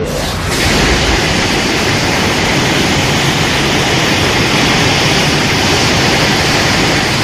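Godzilla atomic-breath sound effect: a loud, steady rushing blast of noise, starting about half a second in and held without change.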